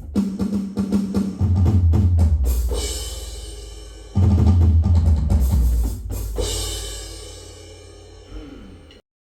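Electronic drum sounds played on an Alesis Strike MultiPad: a quick run of drum hits, then a heavy low boom with a crash cymbal ringing out and fading. A second boom and crash follow about three seconds later and fade away before the sound cuts off abruptly near the end.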